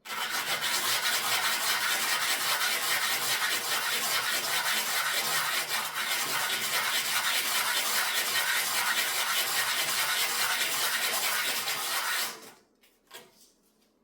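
Fine sanding on a piece of jewelry: a steady, dry scratchy rubbing made of rapid short strokes. It stops abruptly about twelve seconds in, followed by a couple of faint clicks.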